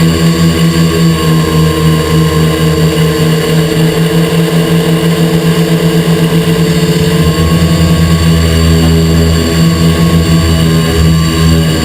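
XP2 quadcopter's electric motors and propellers buzzing loudly and steadily close to the microphone, with a fast flutter. The pitch lifts slightly about a second in and settles back after about seven seconds.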